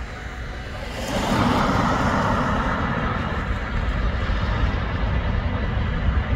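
Road traffic: a vehicle passes close by about a second in, its tyre noise swelling and then fading, over a steady low rumble.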